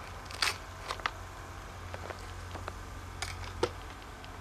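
Thin aluminium sheet being pulled off a tape-wrapped target block: a few short scrapes and clicks of metal and tape, the loudest about half a second in and two more in the second half, over a steady low hum.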